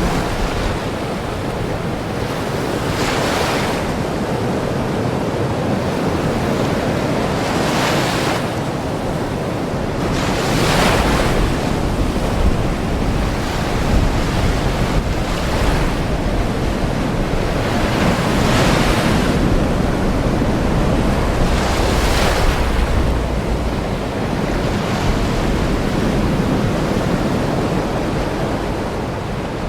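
Ocean waves washing in, a steady rush of surf with swells that rise and fade every few seconds.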